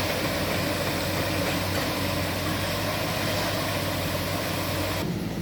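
Heavy earthmoving machine's diesel engine running steadily with a constant low hum. The sound changes abruptly near the end, the hiss dropping away.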